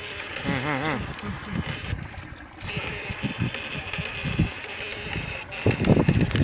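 Wind buffeting and handling noise on a phone microphone, with uneven low thumps throughout and a brief wavering vocal hum about half a second in.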